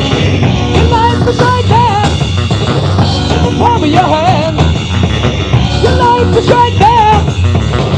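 Late-1970s rock trio recording of drums, bass guitar and electric guitar playing together. A wavering, bending melodic line comes in three times over a steady, heavy low end.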